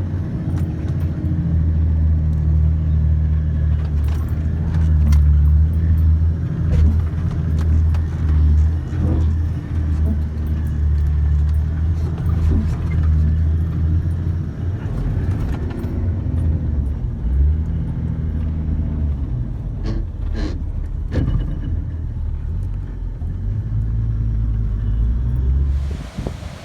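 Four-wheel-drive vehicle driving: a steady low engine and tyre rumble with scattered clicks and rattles, a few sharper ones about two-thirds of the way through.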